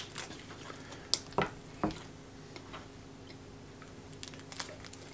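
Quiet handling of a paper snack-bar wrapper while soft nougat is eaten: a few sharp clicks and light rustles, the sharpest about a second in, over a low steady hum.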